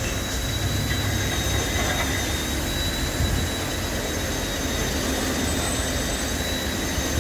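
Steady mechanical running noise with a thin, unchanging high whine.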